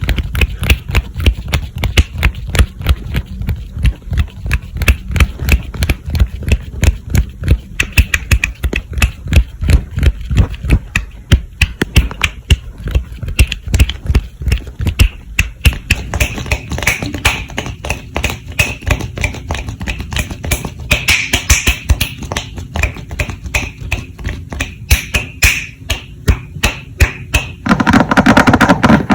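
ASMR hand sounds close to the microphone: fast, hard tapping and hand strokes, several a second, with mouth sounds mixed in. Near the end they merge into a louder, continuous rubbing sound.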